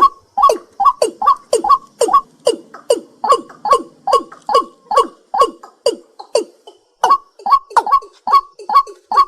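A night bird calling in a rapid, even series of short notes, each dropping sharply in pitch, about three a second, with a short break about seven seconds in.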